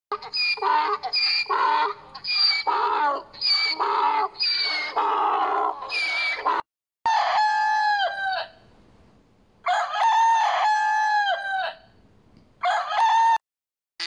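A donkey braying, a run of hee-haws alternating high and low. After a brief break a rooster crows: two long cock-a-doodle-doos and a short third call near the end.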